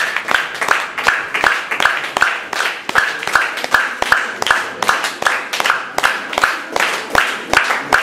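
Audience applause: hands clapping in a steady, even beat, about three to four claps a second, with some claps close and loud.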